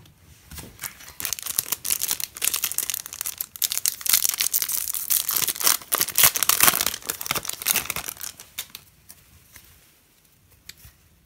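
Foil Yu-Gi-Oh! booster pack wrapper being torn open and crinkled in the hands: a dense, crackly rustling that starts about a second in and dies away a few seconds before the end.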